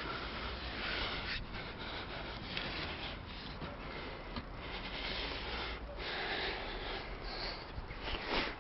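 A climber breathing hard in uneven gusts of breath close to the microphone, with rubbing and knocking as hands and camera scrape against the stone blocks; the loudest breath or scrape comes near the end.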